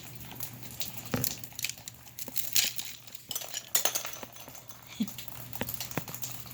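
Irregular sharp clinks and crackles of ice being handled, like small pieces of glass knocking together.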